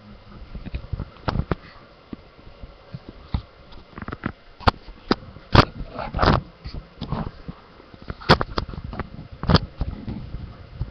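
Irregular clicks, knocks and a few heavier thumps of something being handled close to the microphone.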